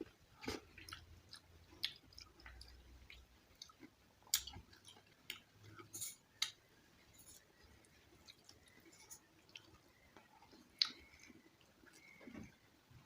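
A person chewing a meal of soft rice and mashed vegetables close to the microphone, with irregular wet mouth clicks and smacks.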